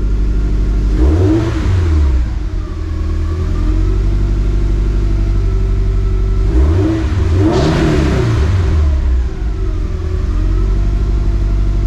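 Toyota 86's flat-four engine idling, freshly refilled with new oil, with two throttle revs: the pitch rises and falls about a second in and again around the middle.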